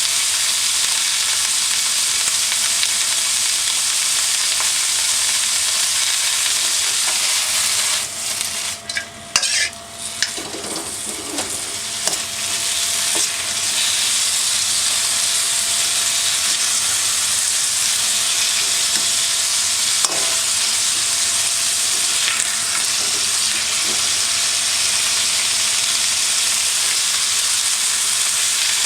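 Food stir-frying in a hand-hammered iron wok: a steady loud sizzle with stirring. About eight seconds in the sizzle drops away for several seconds, with a few scrapes and clinks, then comes back at full strength.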